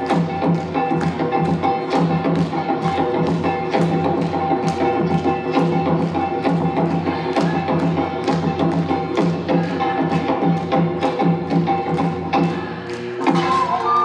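Korean traditional dance music: sharp, evenly paced metal strikes, about two to three a second, typical of the kkwaenggwari small gong played in jinsoe-chum, over sustained melodic instruments. The playing thins briefly shortly before the end, as a new held tone comes in.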